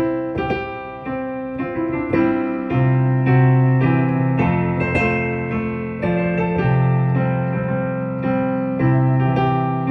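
Piano playing a slow tune in held chords, with a melody over a sustained bass line; the chord changes about once a second.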